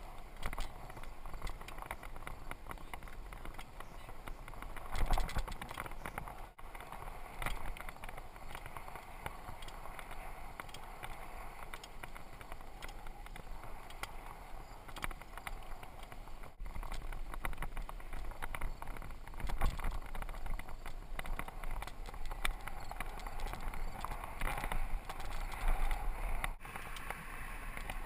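Mongoose mountain bike being ridden on paved road: steady tyre and wind noise with scattered rattles and knocks from bumps. A few louder knocks come about five seconds in and again near twenty seconds.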